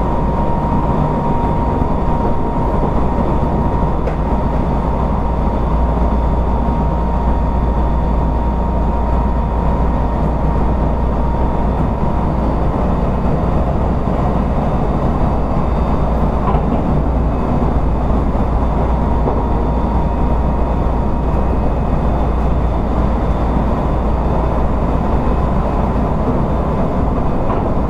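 Odakyu 1000 series electric train running at a steady speed, heard from inside a motor car: a loud, steady rumble of wheels and running gear on the rails. A thin steady whine sits over it and fades out after about twenty seconds.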